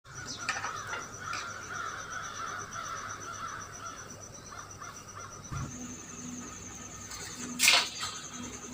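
Bird calls that sound like crows cawing, wavering and harsh, through the first few seconds. One loud, short, sharp sound comes near the end.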